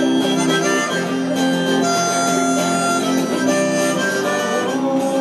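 Harmonica playing held chords over guitar accompaniment, an instrumental passage of a street musician's song.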